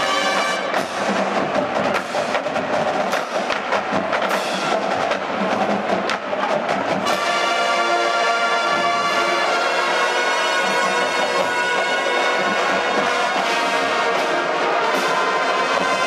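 Marching band playing, brass and drums. Percussion hits punctuate the first half, then the brass settles into sustained full chords.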